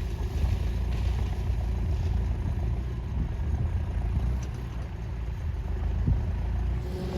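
Tractor engine running steadily, a low rumble.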